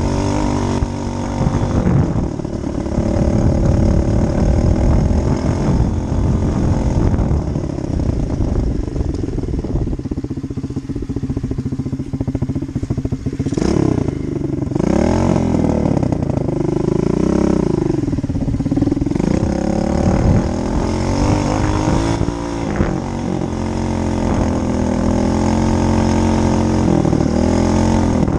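Dirt bike engine running, its pitch rising and falling as it is revved, mostly in the middle stretch, and steadier before and after.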